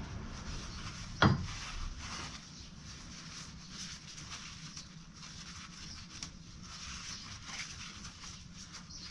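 Tools and parts being handled on a workbench: one sharp knock about a second in, then faint rustling and light clicks.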